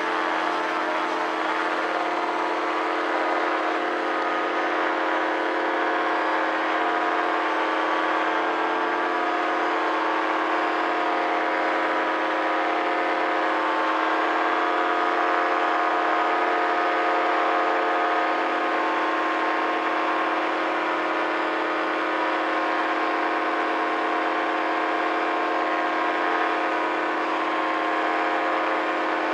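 Paramotor engine and propeller running steadily at climbing power, a constant drone with no change in pitch.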